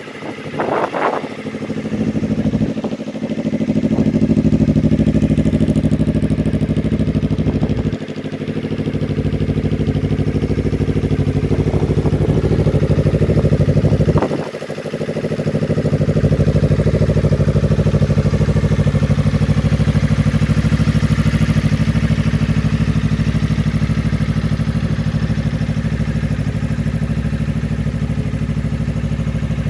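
Suzuki GSX250R motorcycle engine idling steadily, with a few brief dips in the sound.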